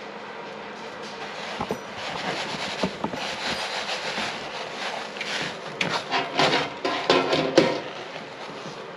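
Hands pressing and turning a salmon fillet in panko breadcrumbs in a plastic bowl: a gritty rubbing and rustling of the dry crumbs, with louder, irregular scraping strokes from about five seconds in.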